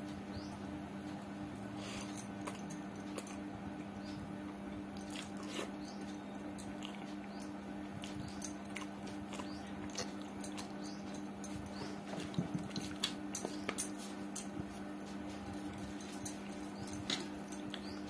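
Eating with the hand from a steel plate: fingers mixing khichdi and wet, smacking mouth sounds of chewing, heard as scattered soft clicks that grow busier and louder in the second half. A steady low hum runs underneath.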